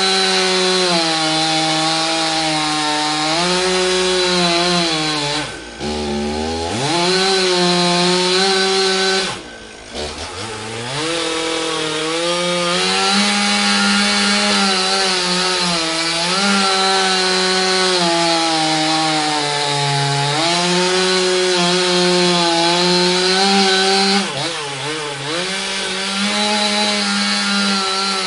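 Chainsaw engine running at high revs while cutting wood, its pitch sagging and recovering under load. Twice, about six and ten seconds in, the engine falls briefly toward idle and revs back up, and it bogs down again briefly near the end.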